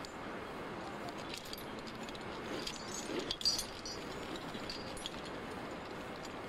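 Climbing hardware (carabiners and protection racked on a climber's harness) clinking and jingling now and then as he moves up the rock, over a steady hiss.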